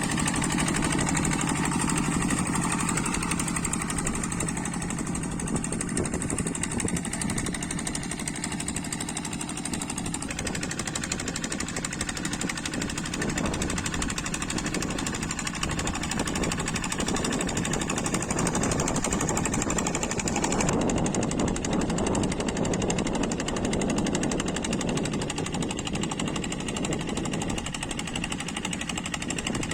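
Kubota diesel engine of a hand tractor running steadily under load while levelling a wet paddy field. Its exhaust beat has a rapid, hammering chug.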